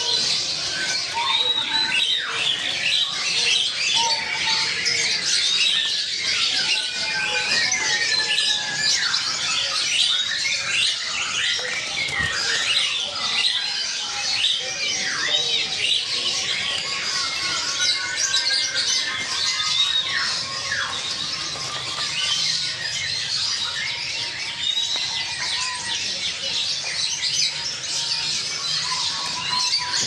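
Dense chorus of many caged birds chirping and squawking over one another, a continuous mass of quick, high calls with no pause.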